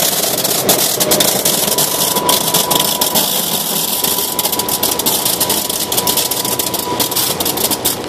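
Optical grape destemmer-sorter running steadily, a continuous machine noise with a thin steady tone and rapid irregular clicking as the berries pass through.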